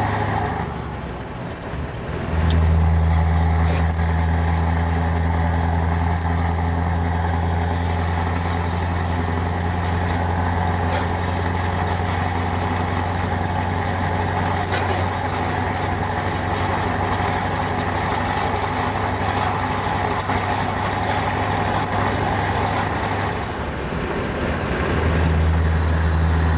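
Scania R500 V8 diesel truck engine heard from inside the cab at road speed, a steady low drone that eases off briefly about a second in and again near the end before pulling again.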